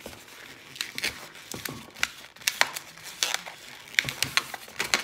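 Latex modelling balloon squeaking and rubbing in the hands as it is handled and twisted, in many short irregular squeaks.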